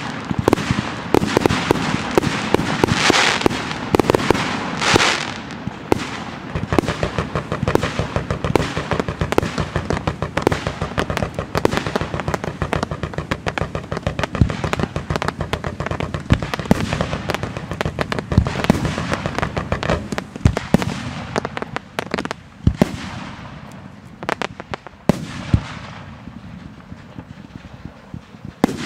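Fireworks display: a dense, rapid barrage of crackling and banging shell bursts that thins out to scattered single bangs in the last few seconds.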